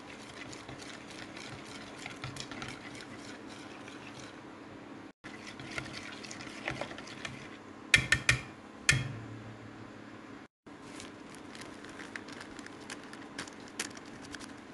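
Egg, grated cheese and margarine batter being stirred by hand in a glass bowl, the utensil ticking and scraping against the glass. About eight and nine seconds in come a few sharp clinks of a small glass bowl knocking against the rim of the mixing bowl as it is tipped out.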